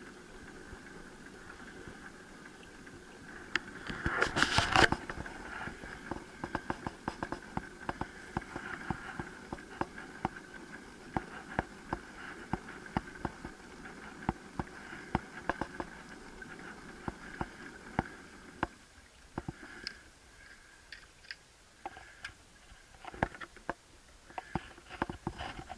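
Pedal boat's chain drive and sprockets running with a steady whir and many small irregular clicks and knocks, with a louder rush of noise about four seconds in. After about eighteen seconds the whir drops away, leaving scattered knocks.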